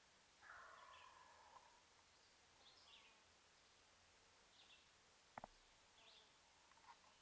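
Quiet woods: a faint, distant wild turkey gobble about half a second in, over a songbird's faint high chirps repeating every second or two. A sharp double click comes about five seconds in.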